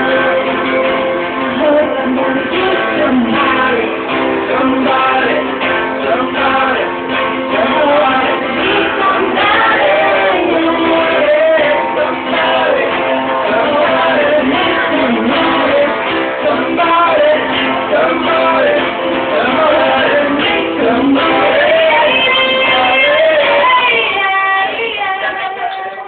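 Live band playing a song with guitar and singing. Near the end the music winds down and stops.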